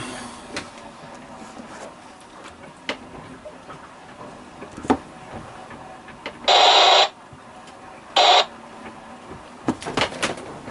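Two short bursts of hiss from a VHF marine radio, the second one shorter, each starting and stopping abruptly. Scattered light clicks are heard between them.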